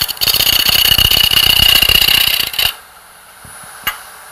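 Hand-held turning tool cutting a wooden sphere spinning on a wood lathe: a loud scraping with a steady high whine in it, taking light cuts to chase off the last ghost ridge of the sphere. There is a short break just after the start. The tool comes off about two and a half seconds in, leaving the lathe running quietly, with a single click near the end.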